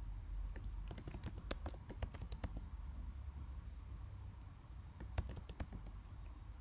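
Keystrokes on a computer keyboard: a quick run of taps about a second in, then a few more near the end, over a low steady hum.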